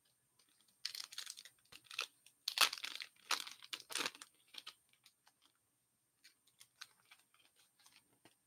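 Foil wrapper of a hockey card pack torn open and crinkled in a flurry of sharp crackles during the first half. After that, only faint scattered rustles and clicks as the cards are handled.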